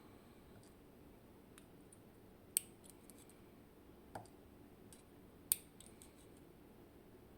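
Scattered small metal clicks and taps from the parts of a Zikon RW6 dimple lock being handled as it is taken apart. The two sharpest clicks come about two and a half and five and a half seconds in, with a duller tap between them.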